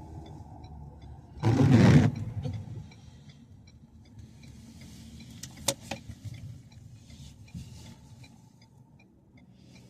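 Car cabin noise while driving: a steady low road rumble, with a loud, brief rush of noise about a second and a half in and a single sharp click around the middle.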